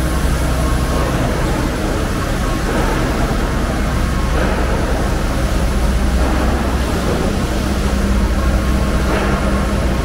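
City street traffic: a steady, loud low rumble of vehicle engines, with a running engine hum underneath.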